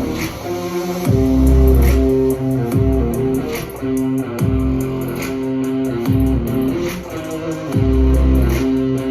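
Guitar-led music with bass, played back loud through a Harman Kardon Onyx Studio 7 portable speaker, with low bass notes swelling every second or so.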